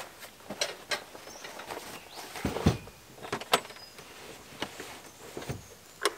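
Scattered clicks, knocks and rustles of camping gear being handled and stowed in the back of a four-wheel drive, with one heavier thump about two and a half seconds in.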